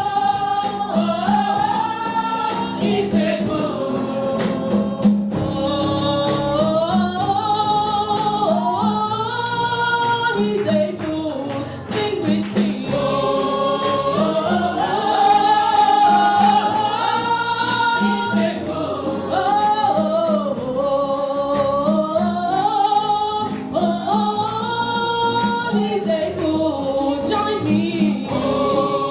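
Gospel choir singing with band accompaniment, voices carrying a gliding melody over a steady beat.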